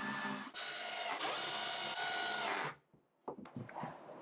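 Cordless drill driving screws into a wooden bracing: a short run, a brief pause, then a steady motor whine of about two seconds that stops abruptly. Faint handling sounds follow near the end.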